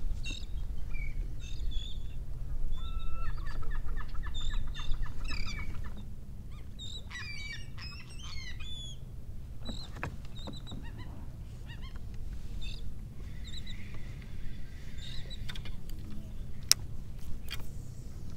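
Gulls calling over open water, a quick run of repeated calls in the first few seconds, then more calls around the middle, over a steady low rumble. A few sharp clicks near the end.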